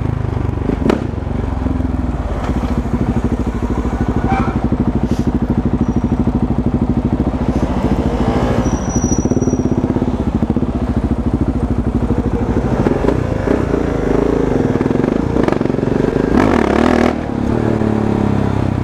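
KTM 690 Duke's single-cylinder engine, fitted with a decat pipe and aftermarket Fresco exhaust, running with an even, fast firing pulse while the bike is ridden; the engine note shifts with the throttle in the second half.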